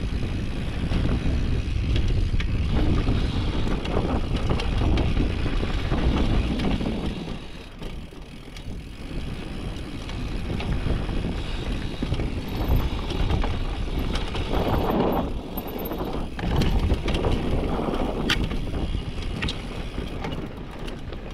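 Downhill mountain bike rolling fast over a loose dirt trail: wind buffeting the camera microphone over the noise of the tyres on the dirt, with scattered clicks and rattles from the bike over bumps. The noise eases for a moment about eight seconds in.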